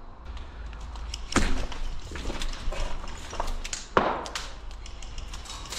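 Irregular sharp clicks and knocks during airsoft play, the loudest two about a second and a half in and about four seconds in, over a low rumble of a body-worn camera on the move.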